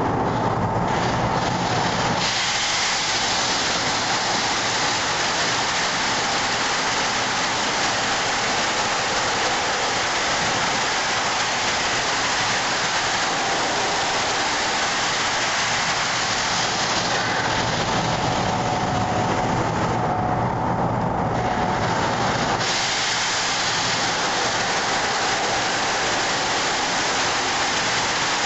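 Sandblaster blasting crushed-glass media through a hose nozzle: a loud, steady rush of air and grit over a low hum. The blast comes up to full about two seconds in, eases off for about five seconds past the middle, then comes back to full.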